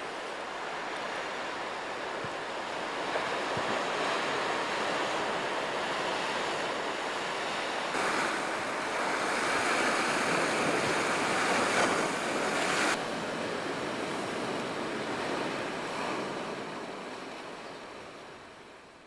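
Sea surf breaking and washing over a rocky shore, a steady rush. It turns louder about eight seconds in, drops back abruptly about five seconds later, then fades out near the end.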